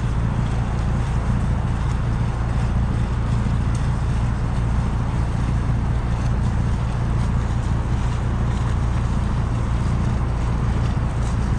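Sailing yacht's engine running steadily under way, a constant low drone, with wind rumbling on the microphone.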